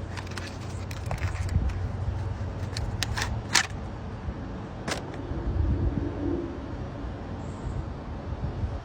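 A folding knife being handled: several sharp clicks and taps over a steady low rumble of wind on the microphone.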